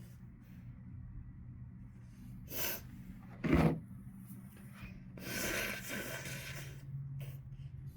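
A single sharp sneeze with a voiced burst, brought on by sniffed chhinkni powder, with a short breath just before it. About two seconds later comes a longer, breathy, noisy exhale.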